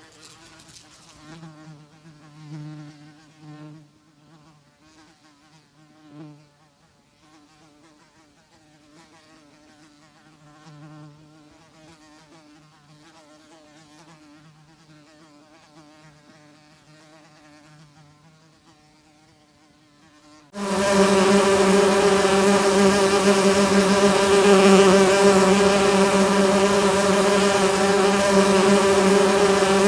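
Flying insects' wings buzzing. First comes a faint buzz that swells and fades unevenly. About two-thirds of the way through it cuts suddenly to a much louder, steady buzz at a higher pitch.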